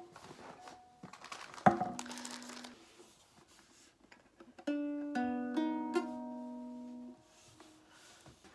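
Donner ukulele being played: a single loud strum about two seconds in rings briefly. Then, about five seconds in, strings are plucked one after another about half a second apart and ring out together for a couple of seconds, with soft handling rustle in between.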